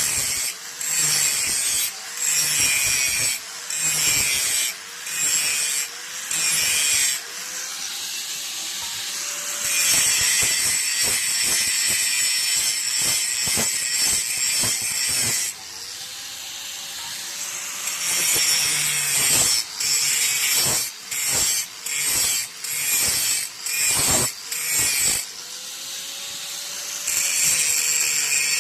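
Steel knife blade being sharpened by grinding, metal on abrasive: short repeated strokes of rasping hiss, with longer unbroken stretches of grinding in the middle and near the end.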